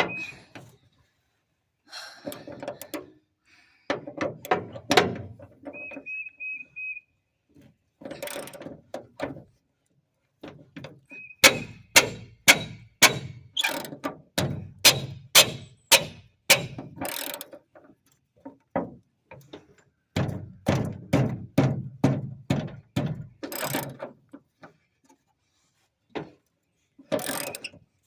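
Hand tools working on bolts: runs of sharp knocks and clicks, about two a second in the middle of the stretch and faster near the end, broken by short pauses. A few short high chirps, in quick groups of three or four, come at the start, about six seconds in and about eleven seconds in.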